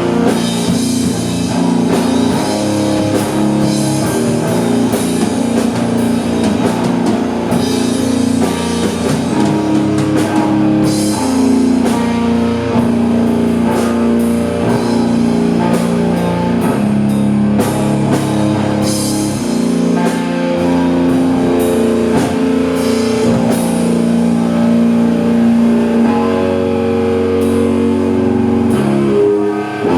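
Rock band playing: electric guitar chords over a drum kit. The music dips briefly just before the end.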